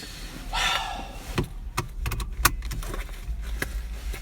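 Handling noises: a short rustle about half a second in, then a run of sharp clicks and knocks, with keys jangling.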